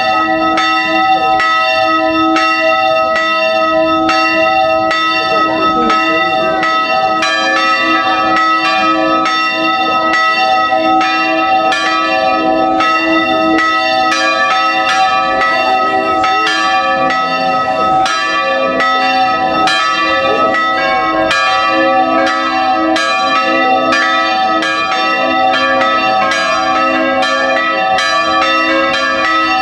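A peal of five swinging church bells, tuned as a concert in A, ringing together with their strokes overlapping continuously. More notes join the peal about seven seconds in.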